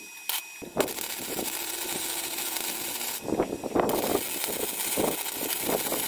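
MIG welder arc crackling and hissing steadily as it lays a weld on steel box-section tube, starting about half a second in after a couple of short clicks.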